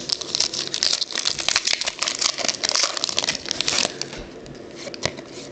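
Football trading cards and their foil pack wrapper being handled: a dense run of crinkling and small clicks for about four seconds, then quieter with a single click near the end.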